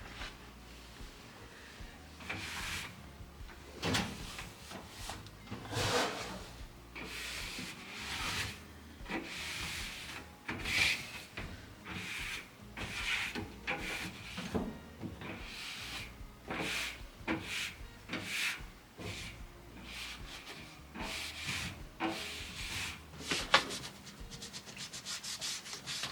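Repeated rubbing and scrubbing strokes of hand-cleaning on clothes dryer parts, in uneven bursts about a second apart, with a sharp click near the end.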